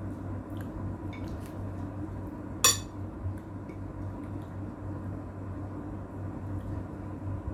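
Eating utensils clinking on a dish: a few faint clicks and one sharp, ringing clink a little under three seconds in. A steady low hum runs underneath.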